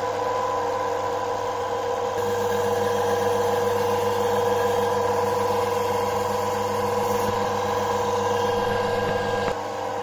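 Washing-machine universal motor rig running at steady speed with an even electric whine and hum, then switched off about nine and a half seconds in, the sound dropping and winding down.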